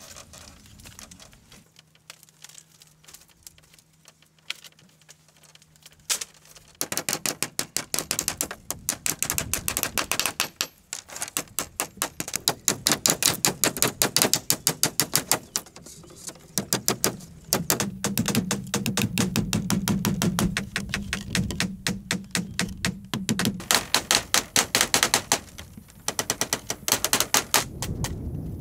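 Rapid, evenly spaced strikes of a hand tool on bamboo, in runs of several seconds with short pauses, starting about a quarter of the way in.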